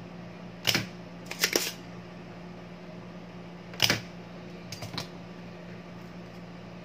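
Sharp clicks of a spring-loaded desoldering pump (solder sucker) being cocked and fired while old capacitors are desoldered from a circuit board. The clicks come in two groups about three seconds apart, over a steady low hum.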